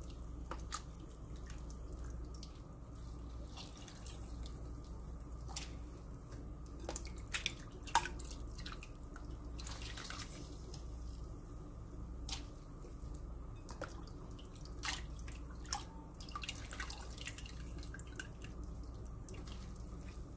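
Water dripping and splashing back into a glass bowl as blanched oyster mushrooms are squeezed out by hand. Irregular drips and small splashes sound over a low steady hum.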